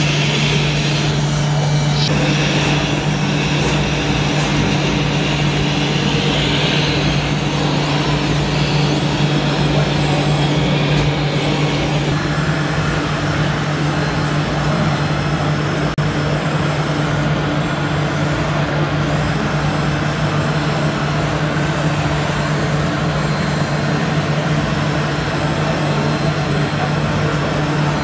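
Radio-controlled model tipper truck and crawler dozer running, with a steady low engine-like hum throughout and a higher whir that drops away about twelve seconds in.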